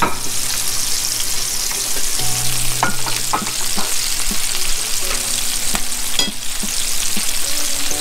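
Chicken wings coated in flour and cornstarch deep frying in hot oil in a pan, giving a steady sizzle, with a few light clicks around three seconds in.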